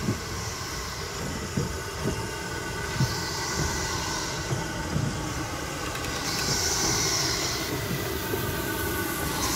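Ivatt Class 2MT steam locomotive 46512 moving slowly along the platform, with irregular low knocks and clanks about once or twice a second. Bursts of steam hiss come every few seconds, twice and then again near the end.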